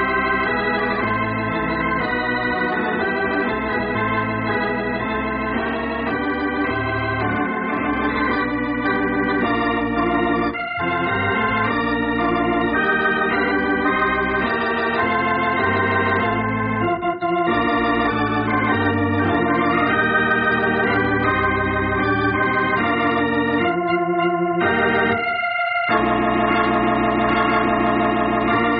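Organ music playing sustained chords as the radio program's closing theme, with a few short breaks between phrases.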